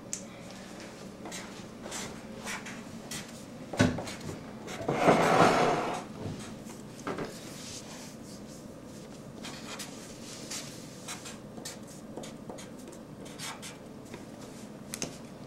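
Black felt-tip marker writing on paper on a clipboard: faint scratchy strokes and small taps. A knock just before four seconds in and a louder scraping noise about a second long near the middle.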